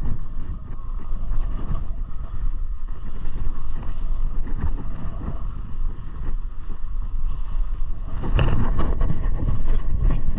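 Short snowblades sliding and scraping over groomed snow at speed, with wind buffeting the body-worn camera's microphone in an uneven low rumble. About eight seconds in comes a louder, harsher burst of scraping lasting about a second.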